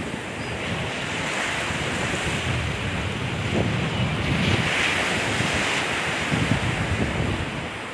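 Sea surf breaking and washing up the beach, a steady roar of waves that swells about halfway through, with wind buffeting the microphone.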